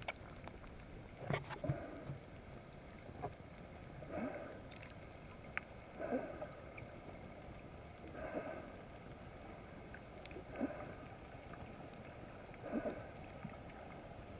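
Water moving around an underwater camera housing: muffled sloshing that swells about every two seconds, with a few sharp knocks on the housing in the first few seconds.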